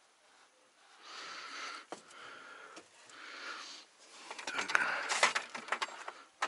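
A person breathing hard close to the microphone, three breaths about a second apart, then a run of sharp clicks and knocks from handling gear.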